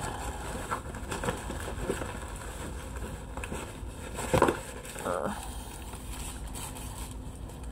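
Light rustling and soft clicks of paper and plastic craft-supply packaging being handled, with a brief louder sound a little over four seconds in.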